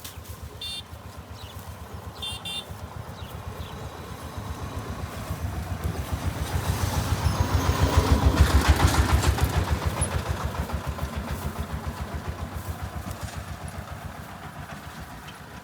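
A motor vehicle's engine, running with a low, even pulsing, passing by: it grows louder to a peak about halfway through, then fades away. Two brief high chirps come in the first few seconds.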